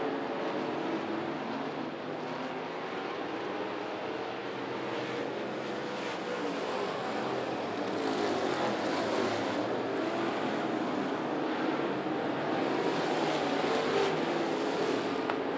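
Several dirt-track race car engines running hard around the oval, their pitch rising and falling as the cars lift off for the corners and accelerate down the straights.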